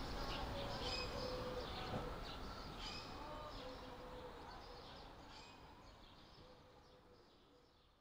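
Birds chirping over faint outdoor background noise, fading out steadily to silence.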